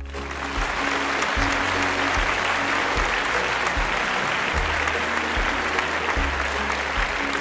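Applause, starting abruptly and running until it stops at the end, over background music with a repeating bass line.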